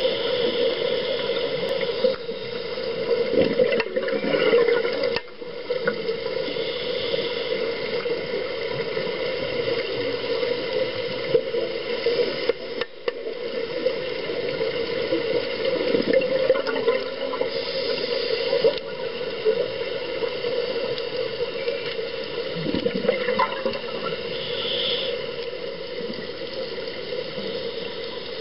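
Underwater sound of a scuba dive: a steady watery rush and hum, with gurgling swells a few times as a diver's regulator breathes out bubbles.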